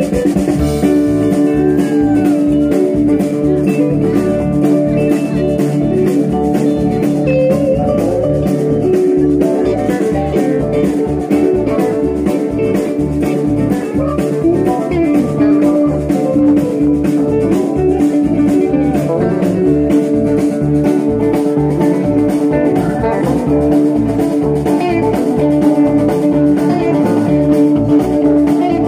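Live band playing an instrumental passage: electric guitar lines over a steady drum beat.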